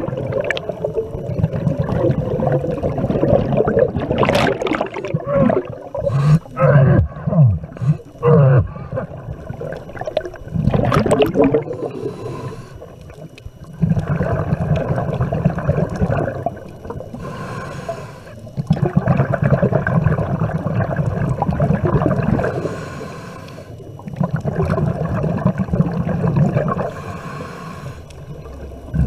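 Scuba regulator breathing underwater: long gurgling stretches of exhaled bubbles alternate with short hissing inhalations, a breath every few seconds. In the first part the exhalations warble.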